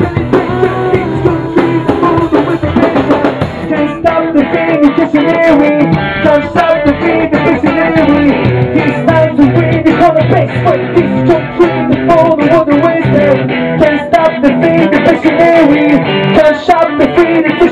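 A rock band playing loudly in a small rehearsal room: a man sings into a handheld microphone over electric bass and drums.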